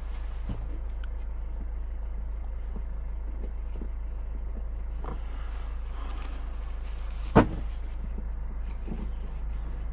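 Faint rubbing and small knocks of a hand wiping around the fuel tank sender opening with paper towel, over a steady low hum. One sharp knock stands out about seven seconds in.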